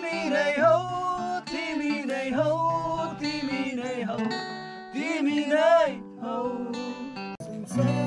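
A man singing a song to a strummed acoustic guitar. The music breaks off briefly near the end, then guitar and voice start again.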